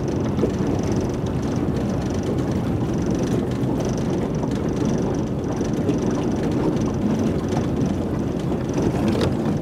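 Outboard motor running at low speed while the boat moves, a steady even noise without distinct beats.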